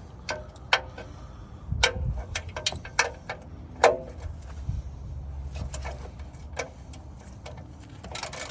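Sharp metallic clicks and clinks, irregularly spaced, from a 17 mm wrench working the oil drain bolt loose on a car's oil pan, over a low rumble.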